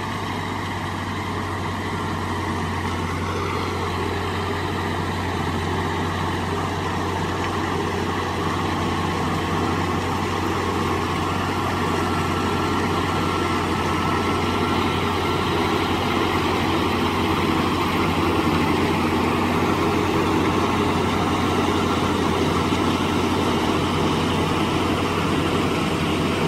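Ford 9000 tractor's six-cylinder diesel running steadily under load, driving a John Deere forage chopper through corn for silage: a continuous heavy drone with a low hum, growing slightly louder as it goes.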